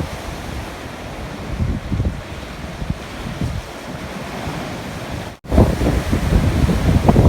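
Sea waves surging in strong wind, with wind buffeting the microphone in low rumbling gusts. The sound drops out for an instant about five seconds in and comes back louder and gustier.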